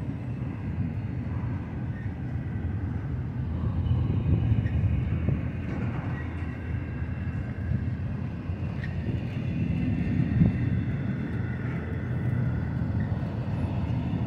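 Double-stack intermodal well cars of a BNSF freight train rolling slowly past on the rails: a steady low rumble of steel wheels, with a few sharp clicks.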